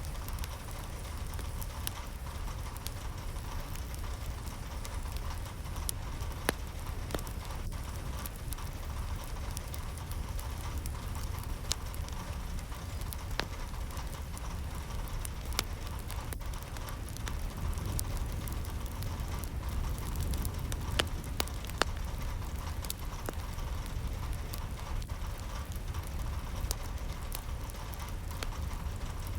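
Steady rain falling, with many scattered individual drops ticking sharply on a hard surface over a constant low rumble.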